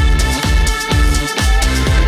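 Electronic dance music with a steady, fast kick-drum beat, each kick a quick downward swoop in pitch, under held synth tones.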